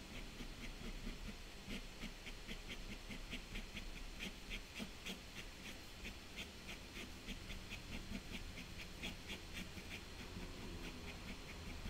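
Sakura Pigma Micron 05 fineliner pen scratching across toned paper in quick, short flicking strokes, several a second, as grass is hatched in.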